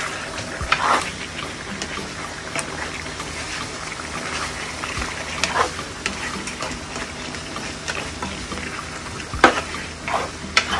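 Chicken, onions and tomatoes sizzling in a nonstick pan as they are stirred with a plastic spatula, which scrapes and knocks against the pan now and then, loudest twice near the end.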